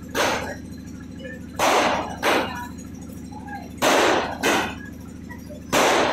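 JBR-brand 120-shot multicolour fireworks cake firing: six sharp bangs, mostly in pairs about two seconds apart, each ringing off for about half a second.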